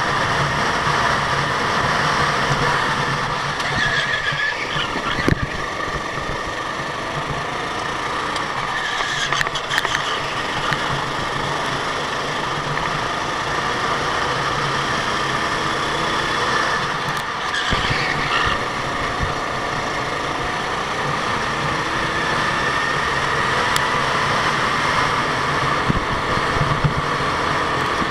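Go-kart engines running on a track, a steady engine drone whose pitch drifts up and down with the throttle.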